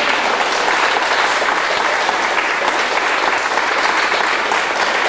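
A group of people applauding, a steady run of many hands clapping.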